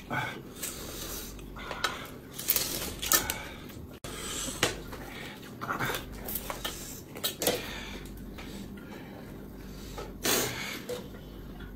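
Eating sounds at a table: irregular chewing and smacking with light clicks of utensils against dishes.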